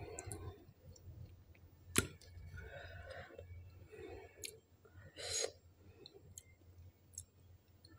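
Quiet room with a few faint mouth clicks from a person sitting silently, one sharp click about two seconds in, and a short breathy rush of air a little after five seconds.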